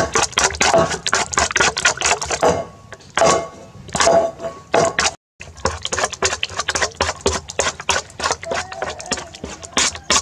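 Metal spoon beating eggs in an aluminium bowl: rapid clinks and scrapes of the spoon against the bowl's side through the wet mixture, briefly cut off about five seconds in.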